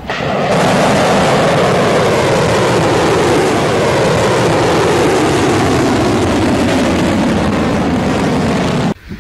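Ballistic missile's rocket motor at liftoff: a loud, continuous rushing exhaust noise whose pitch slowly lowers as the missile climbs away, cutting off suddenly near the end.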